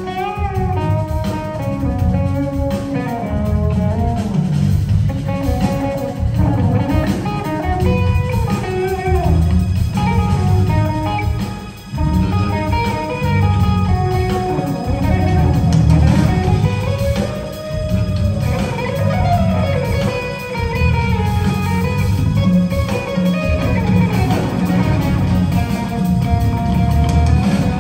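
Live jazz-fusion band playing: an electric guitar carries a melodic lead line with bends and glides over keyboards, bass and drums. The band dips briefly about twelve seconds in, then picks up again.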